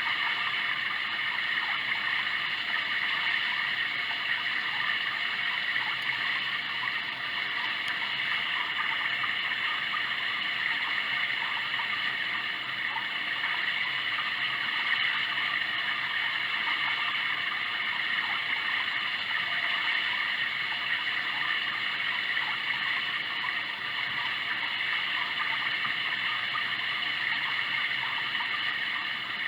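Sound Oasis ambient sound machine playing a steady running-water track, an even rushing stream sound with no breaks.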